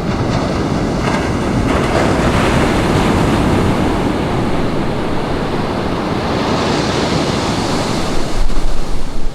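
Ocean surf breaking and washing up the beach: a continuous rush of white water, with the hiss of a wave swelling about two-thirds of the way through. Wind gusts buffet the microphone in the last second.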